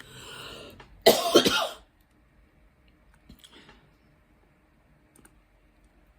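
A person takes a breath and then loudly clears their throat with a short, harsh cough about a second in.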